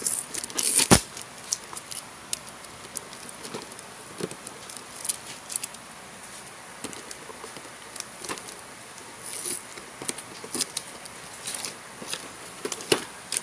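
Fingernails scratching and picking at packing tape on a cardboard figure box, with scattered small clicks and scrapes and one sharper knock about a second in.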